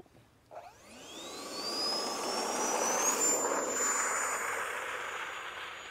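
64mm electric ducted fan of an FMS Rafale RC jet spooling up for takeoff: a whine that rises steeply in pitch, then holds at a steady high pitch, over a rush of air. It fades toward the end as the jet rolls away down the runway.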